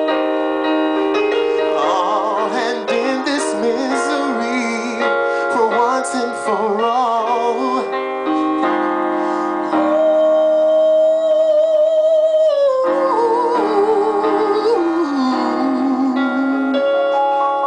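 A man singing in a high voice with vibrato over electric keyboard piano chords. About two thirds of the way in he holds one long high note, then sings a falling phrase, and the song closes on a sustained keyboard chord.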